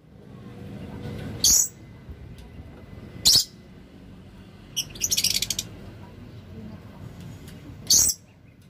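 Caged lovebirds in breeding condition giving loud, short, shrill calls three times, with a quick chattering run of chirps in the middle.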